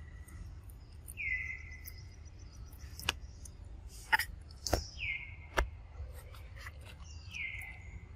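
A bird calling three times, each call a short whistle that falls in pitch, over a steady low hum. Between the second and third calls come four sharp clicks, the loudest sounds here.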